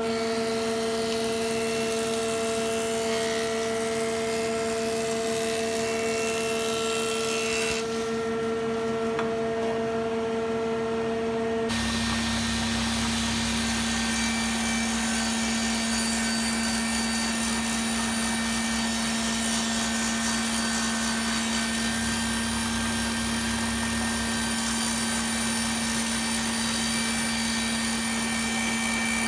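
Stationary woodworking machines running with a steady motor hum. About twelve seconds in the sound changes abruptly: a higher tone drops out and a low rumble comes in.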